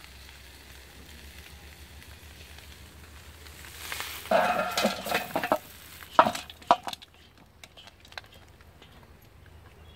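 Whole bitter gourds fried in oil in an iron kadai: a faint sizzle, then the kadai is lifted and tipped, giving a loud scraping clatter about four seconds in and a few sharp knocks as the fried gourds tumble into a steel bowl.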